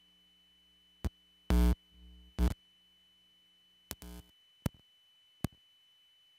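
Electric guitar plugged into an amplifier, playing a few short, choppy note stabs: two loud ones in the first half and a quieter one about four seconds in, with sharp pick or string clicks between them. A steady amplifier hum sits underneath.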